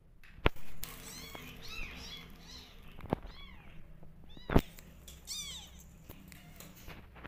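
Newborn kittens mewing over and over in short, high-pitched cries, typical of hungry orphan kittens crying for milk. A few sharp knocks cut in, the loudest about half a second in and about four and a half seconds in.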